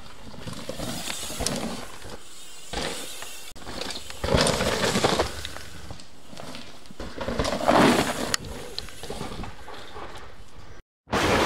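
Mountain bike tyres rolling and skidding over loose forest dirt, in several swelling passes over a steady hiss.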